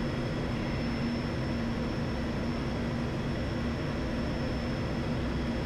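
Steady flight-deck noise of a turboprop airliner on final approach: the engines and propellers hum steadily, with a faint high whine over the rush of air past the cockpit.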